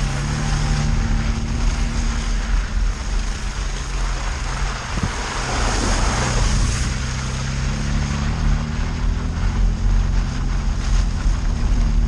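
Suzuki off-road vehicle's engine running steadily on a muddy forest track, with tyre and wind noise on the outside-mounted camera; the engine note shifts slightly about eight seconds in.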